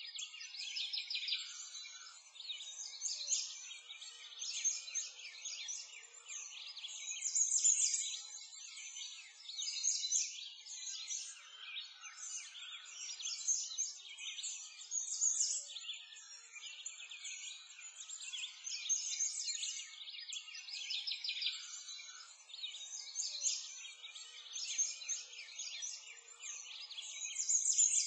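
A dense chorus of small birds chirping and singing continuously, swelling and fading every second or two, with nothing low-pitched beneath it.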